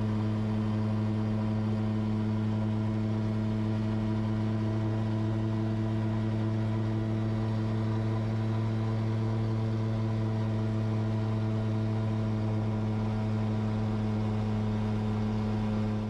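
Edra Super Petrel 100 amphibian's pusher engine and propeller at takeoff power, a steady drone heard from inside the cockpit during the water takeoff run and lift-off.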